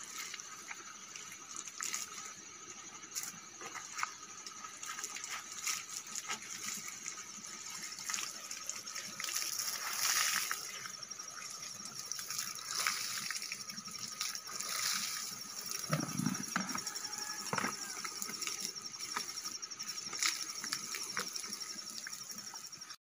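Water splashing and dripping as a wet cloth is rinsed and wrung out, the water running off it into a muddy pool.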